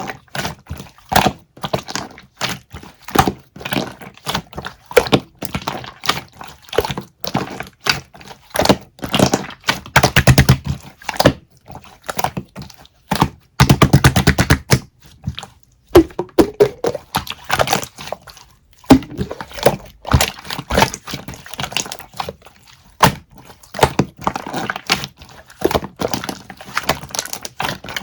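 Irregular series of sharp knocks and taps, with two stretches of fast, rapid tapping about ten and fourteen seconds in.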